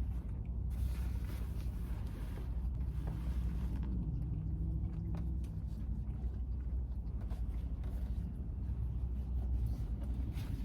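A van driving, heard from inside the cab: a steady low rumble of engine and road noise, with a faint hum that rises and falls about three to five seconds in.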